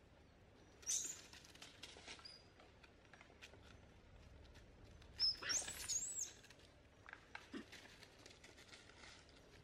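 Young macaques squealing during rough play: a short high squeal about a second in and a longer, louder run of rising squeals around five to six seconds, with light rustling of dry leaves between.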